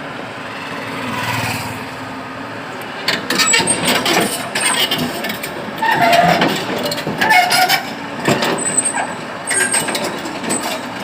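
Excavator's diesel engine running steadily, joined about three seconds in by repeated irregular metal clanks and short squeaks as the machine climbs onto a trailer.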